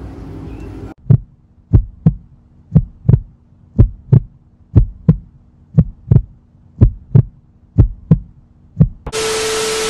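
Heartbeat sound effect: paired deep thumps about once a second over a faint steady hum. Near the end, a loud burst of hiss with a steady tone cuts in suddenly.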